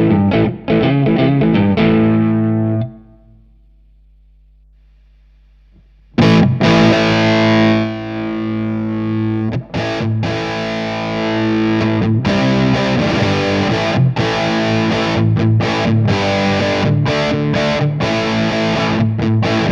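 Distorted electric guitar played through a Line 6 Helix amp-and-cab model: chords and riffs that stop about three seconds in, leaving a few seconds of faint amp hum. A loud chord is struck about six seconds in and rings out, then the playing resumes.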